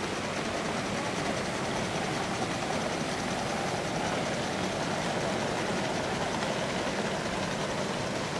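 Gauge 1 model train, an A3 locomotive 60103 hauling teak coaches, running along a raised outdoor track. The wheels make a steady running noise on the rails.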